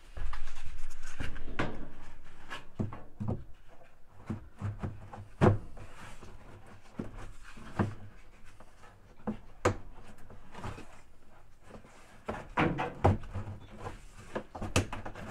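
Plastic tub ring of a top-load washer being handled and pressed down into the lip of the outer tub: a scraping rush at the start, then scattered plastic knocks and clicks, busiest near the end.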